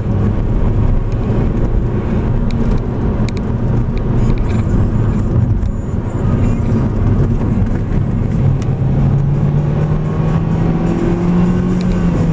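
Vehicle engine running under road and tyre noise while driving on a paved road. In the last few seconds the engine note climbs steadily as it accelerates, then drops at the very end.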